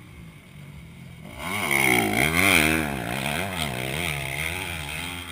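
Motocross bike engine passing close, its revs rising and falling several times as the throttle is worked through a corner. It comes in about a second in and is loudest around the middle.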